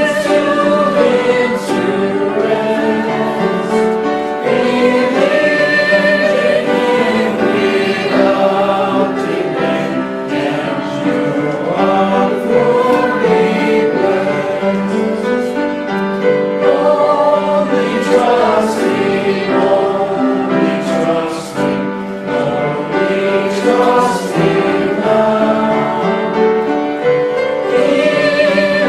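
Congregation singing a hymn together, many voices at once, without a break.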